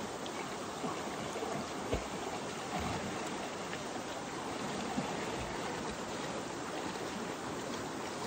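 Steady rush of moving water, with a couple of faint knocks.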